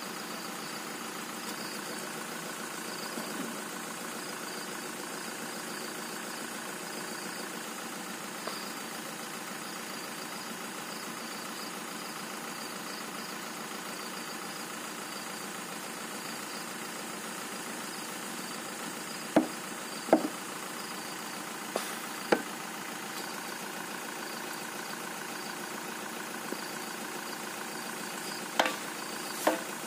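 A vehicle engine idling steadily, with a few sharp knocks: a pair about two thirds of the way through, another shortly after, and more near the end.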